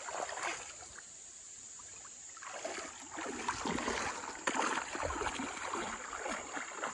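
A child wading through shallow river water: a short splash of hands in the water at the start, then irregular sloshing and splashing of legs and feet that grows busier from about two and a half seconds in.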